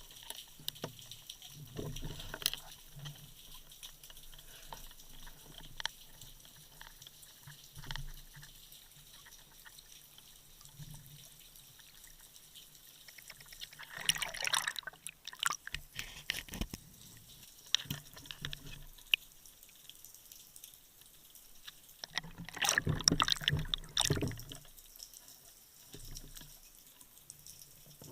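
Underwater sound picked up by a dive camera: faint water noise and scattered small clicks, with two louder stretches of rushing, churning water, one about halfway through and one lasting about two seconds near the end.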